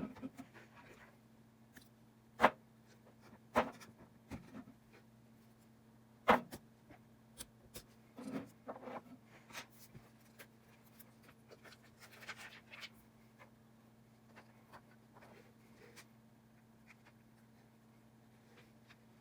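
Small tools and phone parts clicking, tapping and scraping on a work surface during an iPhone XR screen replacement. There are a few sharp clicks in the first half and softer scratching later, over a steady low hum.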